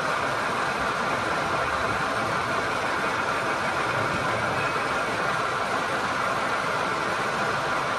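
Gear hobbing machine running, its hob cutting the teeth of a bronze worm wheel: a steady, even machine noise.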